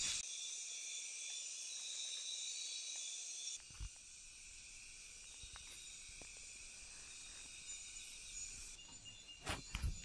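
A chorus of night insects in the rainforest: steady, high-pitched buzzing and trilling with a few held tones. It drops to a quieter level about three and a half seconds in, and a few soft rustles and knocks come near the end.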